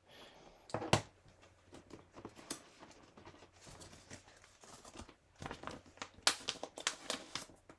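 Hands handling rubber stamps and paper at a craft table: crinkly rustling with scattered light clicks and taps, one sharper tap about a second in and a run of clicks near the end.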